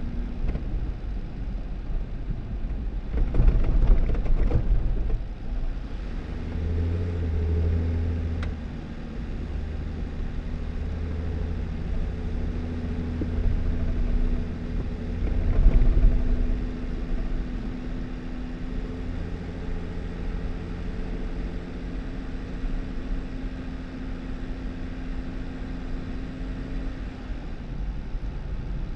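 2018 Jeep Wrangler driving on a snowy dirt road: a steady low rumble of engine and tyres, with louder rough jolts about three to five seconds in and again around sixteen seconds.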